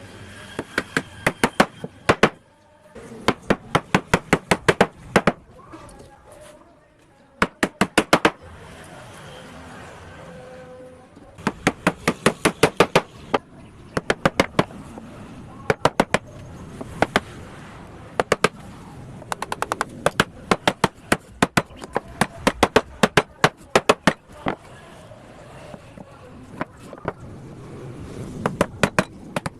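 Bursts of rapid, sharp strikes on wood, about five a second, in runs of several strikes separated by short pauses, from work on a wooden dining chair.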